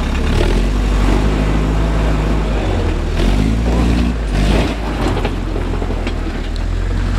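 Land Rover 109 engine running hard under load, its revs rising and falling a few times as the vehicle climbs a rocky step out of water, with tyres churning the water.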